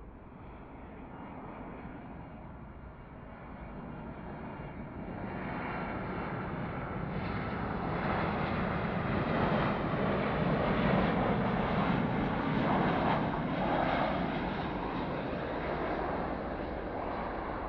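Boeing 737-700's twin CFM56-7B turbofan engines on final approach. The roar and a steady whine grow over the first several seconds as the jet closes in, are loudest in the middle, and ease slightly near the end.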